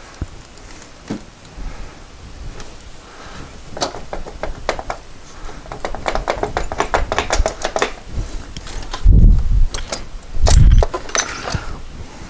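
Metal parts clicking and knocking as engine parts are worked loose by hand, with a dense run of rapid clicks in the middle. Near the end come two heavy low thumps about a second and a half apart, the loudest sounds.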